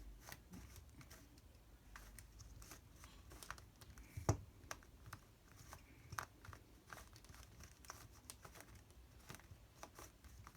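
Plastic Redi Cube being turned by hand during a solve: a quick irregular run of faint clicks and clacks as its layers snap round, a few turns sharper than the rest.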